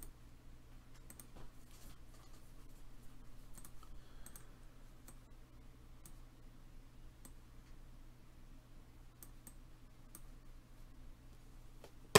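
Faint, irregular clicking at a computer, about a dozen scattered clicks, over a low steady electrical hum.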